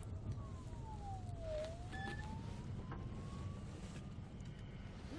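A siren wailing over the low rumble of a car's interior. Its pitch falls slowly, then rises again over a few seconds.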